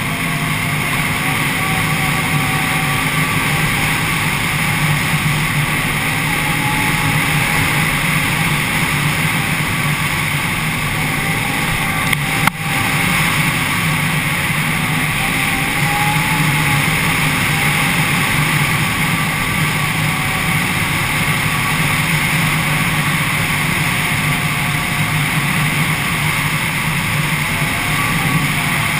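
Can-Am Renegade 800 ATV's V-twin engine running hard at speed on a dirt road, its pitch rising and falling a little with the throttle. A single sharp knock sounds about halfway through.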